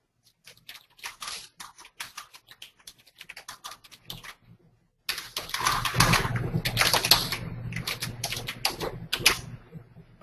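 Typing on a computer keyboard: rapid keystroke clicks in quick runs, growing louder and denser about halfway through.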